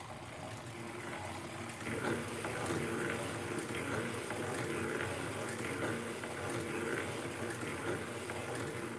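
Hand-cranked circular sock knitting machine knitting plain rows: a continuous mechanical clatter with a regular pulse, growing louder about two seconds in.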